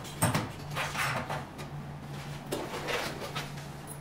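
Knocks, clicks and rustling of plastic and metal parts being handled while a roller handpiece and its cable are fitted at the base of a standing roller slimming machine; the sharpest knock comes about a quarter second in. A steady low hum runs underneath.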